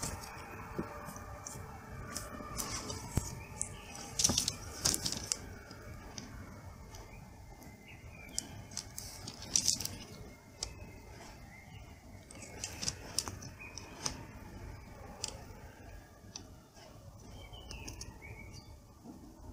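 Soldering iron tip pressed into a laptop's plastic lid to melt and fill a crack around the brass screw anchors, giving scattered small clicks and taps of tip and plastic, a few louder ones around four to five seconds and ten seconds in. Faint bird chirps in the background.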